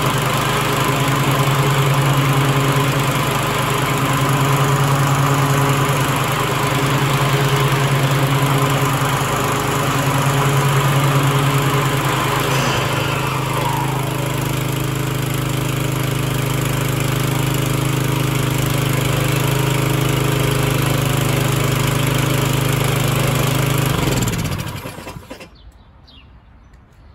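Troy-Bilt 28-inch self-propelled lawn mower's gas engine running steadily on its first run after assembly. It cuts off near the end and winds down.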